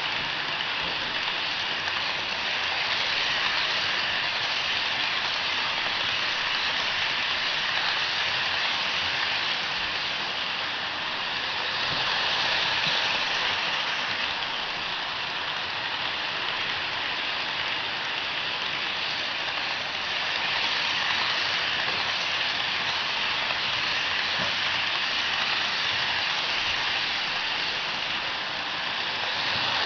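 Steady hissing run of a model freight train: the Rivarossi NKP 765 Berkshire model locomotive's motor and the wheels of a long string of freight cars rolling on the track. It swells a little louder a couple of times as the train passes.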